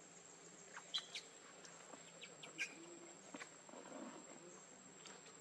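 Quiet outdoor ambience: a steady, thin, high insect drone, with a few brief faint chirps and clicks about a second in and again midway.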